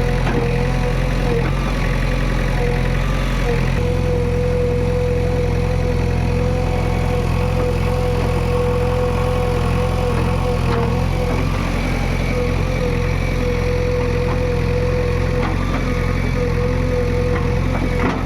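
Diesel engine of a JCB 145 excavator running steadily at a constant speed, with a steady whining tone over the engine note.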